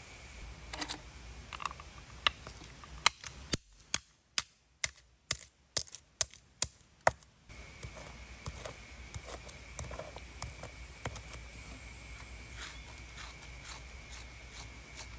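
Snail shells being crushed with a hand stone on a flat stone slab: a run of sharp stone-on-shell knocks, about two a second, then lighter crunching and grinding clicks. A steady high insect drone sets in about halfway through.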